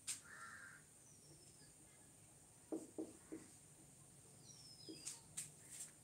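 Near silence with faint sounds of a marker writing on a whiteboard: a few light taps and short high squeaks, and three quick low knocks about three seconds in.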